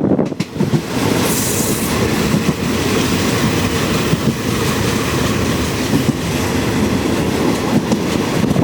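Passenger train running on the rails, wheels clattering over the track with the carriages rattling, loud and steady after a brief dip in the first second.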